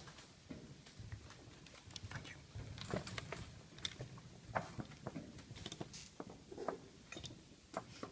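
Scattered light clicks and taps of plastic chess pieces being set down and chess clocks being pressed, over a low rumble.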